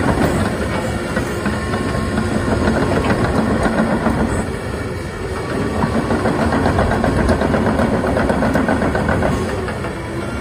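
Komatsu PC170LC-10 excavator's diesel engine running under load, with its steel tracks clanking and clattering as the machine turns in place on dirt.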